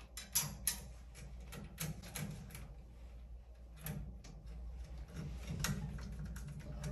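Scattered small clicks and taps of a screwdriver and wiring being worked at a terminal inside a metal changer cabinet, irregular and light, over a steady low hum.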